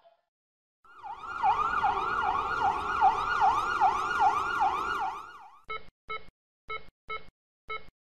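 Emergency vehicle siren in a fast yelp, its pitch swooping down and back up about two or three times a second, fading out after about four seconds. It is followed by short electronic beeps in pairs, about one pair a second.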